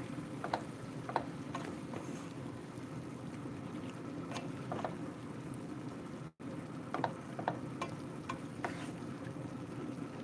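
Wooden spatula stirring chicken and tomato slices in an aluminium pan: scattered light scrapes and clicks against the metal over a steady low cooking noise, with a brief cut-out of all sound about six seconds in.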